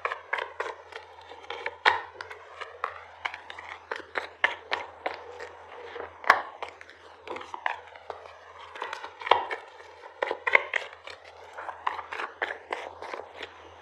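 Tarot cards being handled and shuffled, with many irregular sharp clicks and slaps of the cards, several a second.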